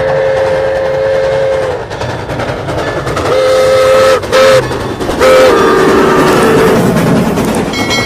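Steam locomotive No. 1225 sounding its steam whistle in four blasts, long, long, short, long, the grade-crossing signal, the last blast sagging in pitch as it dies away, over the steady rumble of the train running past.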